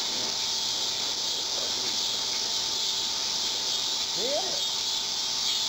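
Steady high-pitched chorus of insects buzzing, with a brief rising sound about four seconds in.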